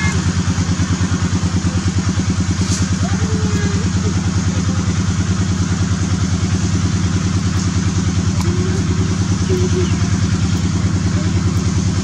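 An engine running steadily with a fast, even pulse and no change in speed. A few faint short chirps sound over it.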